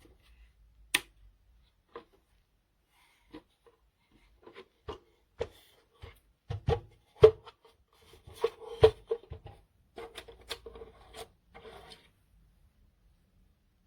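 Objects being handled at close range: irregular sharp clicks and taps with bouts of rubbing and scraping, busiest from about six to twelve seconds in, then stopping.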